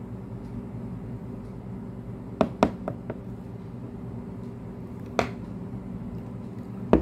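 A wooden spoon knocking against a tall drinking glass: a quick cluster of four sharp taps near the middle, then two more single knocks later, over a steady low hum.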